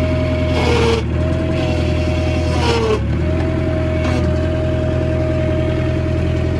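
Bobcat 743 skid steer running with a steady engine note and a high whine. Twice, about half a second and two and a half seconds in, there is a brief hiss while the whine dips in pitch as the loader hydraulics take load, with a fainter dip near four seconds. The controls are being worked to check a tilt function that is stuck.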